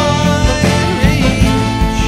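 Rock band playing an instrumental passage: layered held notes over a steady drum beat.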